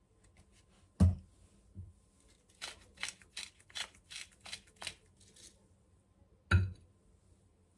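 A hand-twisted spice mill grinding over a bowl in about nine quick scratchy rasps, about three a second. A sharp knock about a second in, and a louder knock near the end as the mill is set down on the countertop.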